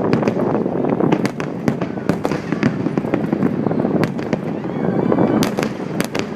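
A fireworks display going off: dense, continuous rumbling of shell bursts with many sharp crackling pops, a cluster of loud cracks about five and a half seconds in.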